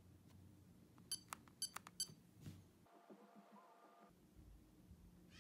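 Vivint wall thermostat beeping with each press of its up button, several short beeps in quick succession about a second in, as the heat setpoint is raised.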